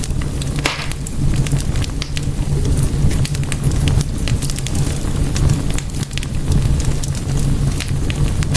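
Wood fire burning in a fireplace, crackling steadily with many sharp pops over a low, steady rumble of the flames; a brief hiss flares up less than a second in.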